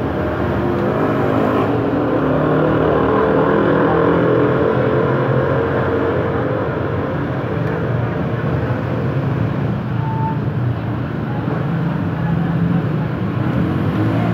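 A motor vehicle engine running steadily, swelling a little in loudness a couple of seconds in.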